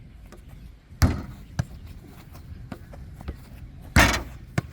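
Football being struck and bouncing on a table during a table foot-volley rally: a loud thud about a second in, a few lighter taps, then another loud thud near the end.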